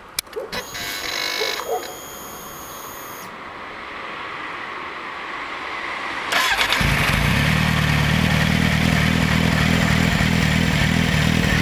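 A 2007 Kawasaki Z750's ignition switched on with a click, followed by a few seconds of thin electric whine. About six seconds in, the starter cranks briefly and the inline-four catches, settling into a steady idle through an Akrapovic carbon silencer.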